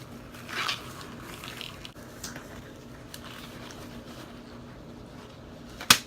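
Work gloves being pulled on: several short rustles and stretches of the glove material, then one sharp snap near the end.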